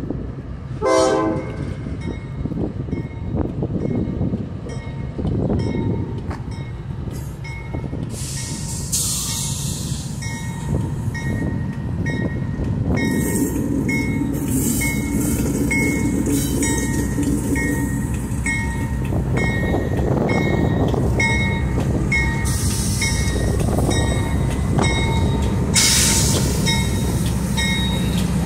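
CSX diesel-electric freight locomotives moving slowly past: a short horn blast about a second in, then the engines' rumble growing as the lead unit draws level. Through the second half a bell rings at an even pace.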